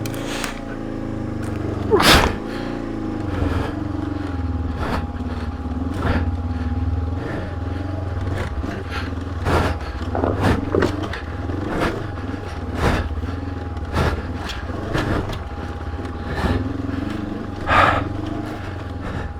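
Honda CB500X's parallel-twin engine pulling up a steep off-road hill, its revs rising and falling unevenly. Sharp knocks and clunks from the bike over rough ground are scattered throughout, the loudest about two seconds in and another near the end.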